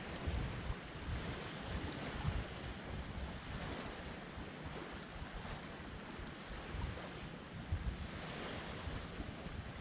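Small waves washing at the water's edge, with wind buffeting the microphone in an uneven low rumble.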